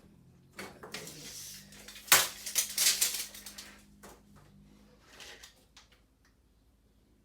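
Metallic clicking and rattling clatter of a tape measure and aluminum trim being handled while measuring. One sharp click about two seconds in is the loudest, with a smaller clatter a few seconds later.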